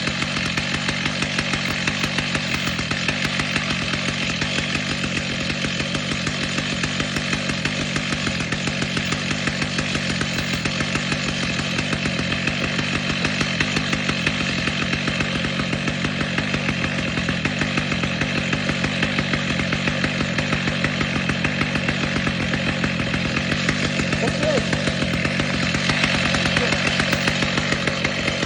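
Two-stroke chainsaw engine running at a steady speed.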